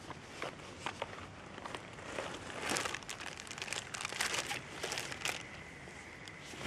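Crinkling and rustling of a postal parcel's packaging being handled, in irregular bursts that are busiest in the middle.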